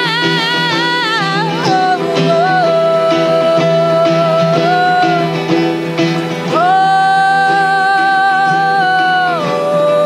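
A live song: a woman singing long, held notes, wavering with vibrato at first, over strummed electric guitar and a second plucked string instrument.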